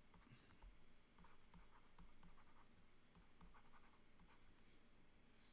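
Faint taps and scratches of a stylus handwriting on a pen tablet, a loose run of short ticks.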